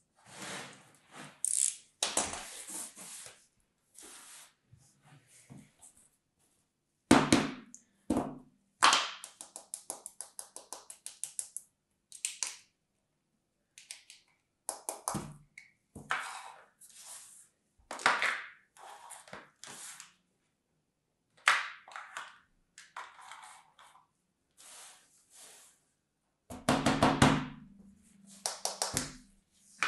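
Close-up handling of kinetic sand and plastic sand molds: short crunchy scrapes and crumbling of the sand, with several hollow knocks. A fast run of small ticks comes about a third of the way in.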